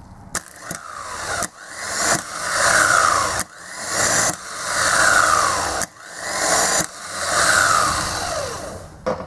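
Mitsubishi 12-tooth starter motor bench-tested on direct battery power, switched on several times in a row. Each run starts with a sharp solenoid click and a whir that swells as the motor spins up, with its pinion thrown out and spinning free. The sound is the sign of a slipping pinion (bendix), not a solenoid fault.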